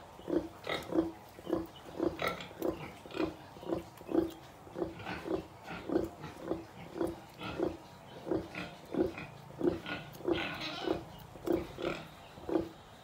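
Nursing sow giving short, low, rhythmic grunts, about two a second, as her piglets suckle: the steady nursing grunting that goes with milk let-down.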